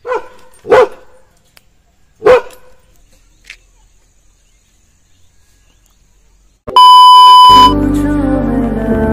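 A German Shepherd barks three loud, short barks in the first few seconds, with a fainter one after. About seven seconds in, a steady electronic beep tone sounds for about a second, and then background music starts.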